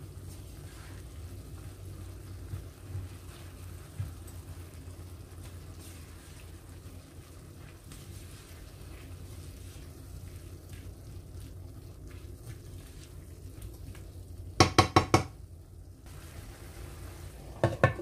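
Chicken and vegetables sizzling in a nonstick frying pan while a spatula stirs them, with light scrapes and taps. Near the end, a quick run of four ringing knocks, then two or three more as a glass lid is set on the pan.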